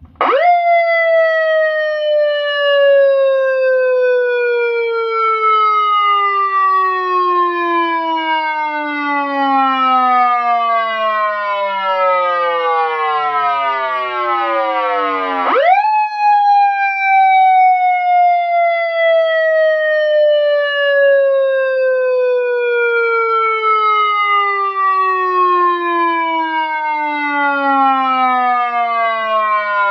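Vietnamese police siren wailing: it shoots up to a high pitch, then slides slowly down over about fifteen seconds, and shoots up again about halfway through for a second slow fall.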